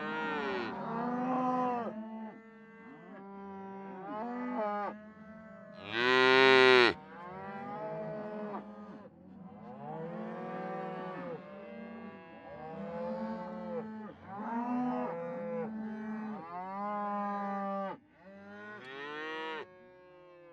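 Cows mooing, one call after another and often overlapping, each rising then falling in pitch. The loudest is a short, higher call about six seconds in, and a steady low drone runs beneath the calls.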